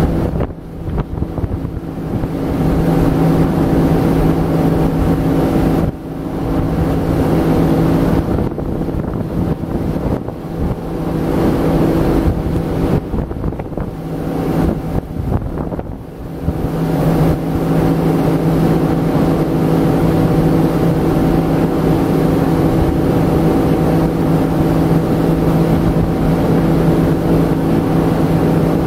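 Motorboat engine running steadily under way, with wind on the microphone. The engine sound dips briefly a few times in the first half, then holds even.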